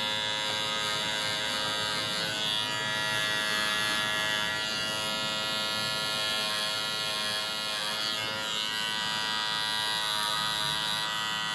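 Bevel cordless hair trimmer running with a steady electric buzz while held to the jawline and beard.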